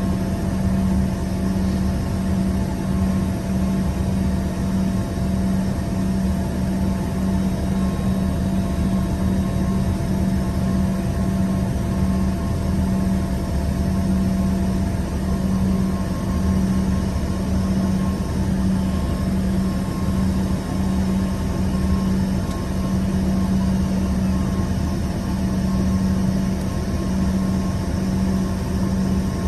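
Steady drone inside the cabin of an Embraer ERJ-145 regional jet: a low hum with faint steady whining tones over it, unchanging in pitch and level.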